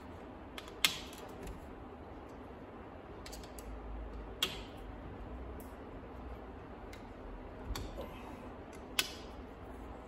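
A few sharp metallic clicks several seconds apart, the loudest about a second in, midway and near the end, as a hex key is fitted into and turned in the jacking bolts that press the backing plate off a cam-lock lathe chuck. A faint steady hum underneath.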